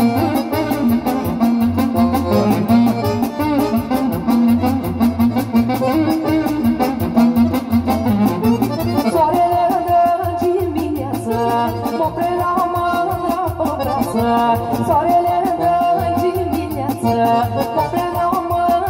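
Live band playing lively dance music: a melody instrument carries the tune over a fast, steady beat.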